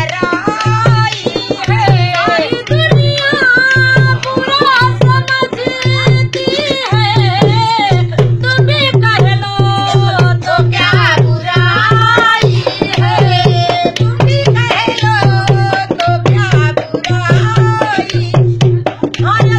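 A woman singing a rustic village folk song while playing a dholak, the rope-tensioned two-headed barrel drum keeping a steady beat of about two strokes a second under her voice.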